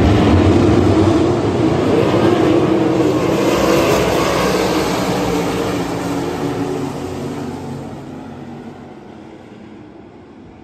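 410 sprint car V8 engines running at racing speed. The loud engine noise dies away over the second half.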